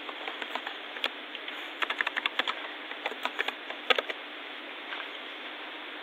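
Computer keyboard keys clicking in quick runs as a SUM formula is typed. The keystrokes are busiest about two seconds in, with one sharp, louder keystroke about four seconds in.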